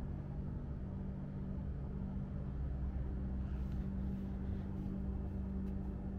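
Steady low droning hum with a few faint clicks in the second half.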